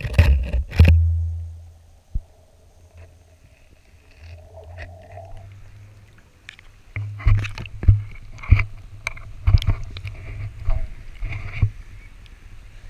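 Handling noise of a GoPro in its waterproof housing on a cord: a loud, water-muffled rumble at the start as it comes up out of the tide pool, then, from about seven seconds in, a run of sharp knocks over a low rumble as the housing is hauled up and swings on the cord.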